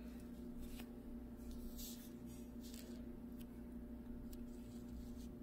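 Faint handling sounds of fingers turning a metal hinged cuff bracelet on a cloth pouch: a few soft, scattered ticks and rustles over a steady low hum.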